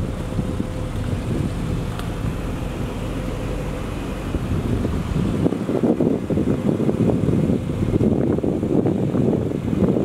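Wind buffeting the microphone as the camera moves along the road, a rough, unpitched rumble that turns choppier and more crackly about halfway through.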